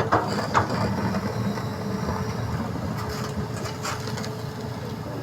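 Hitachi hydraulic excavator running with a steady low engine rumble and a faint steady whine, with a few sharp knocks and clanks at irregular moments.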